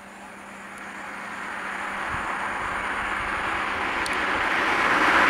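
A road vehicle's engine and tyre noise, growing steadily louder as it draws near.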